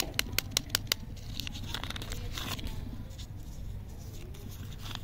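Candy being unwrapped by hand: a quick run of about six sharp plastic clicks in the first second, then the crackling rustle of the Joker Choc Pop wrapper being torn and pulled open.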